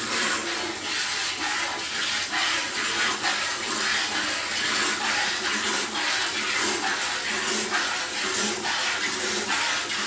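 Milk squirting from a cow's teats into a plastic bucket during hand milking: a steady spray made of quick, repeated squirts.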